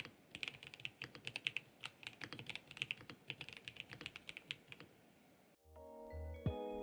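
Typing on a MelGeek Mojo84 Plastic Advance mechanical keyboard with Kailh Custom Box Plastic switches: a fast, uneven run of keystrokes that stops about five seconds in. Background music with mallet-like notes starts near the end.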